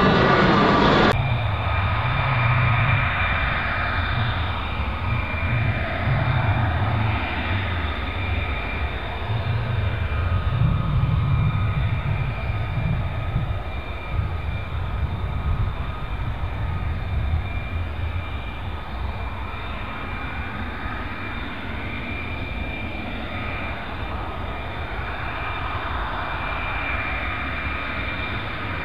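Fighter jet engines running: a steady jet roar with a high whine, its tone sweeping slowly as the aircraft move. The sound changes abruptly about a second in.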